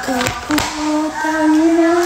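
A high voice singing, with some music, ending on one long steady note held through the second half. A couple of short knocks come just before it.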